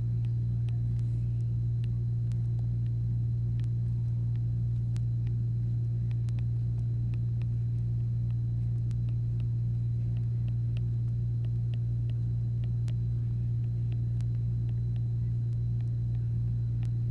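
A steady low hum, with faint, irregular light ticks of a stylus tapping the tablet screen as line numbers are written.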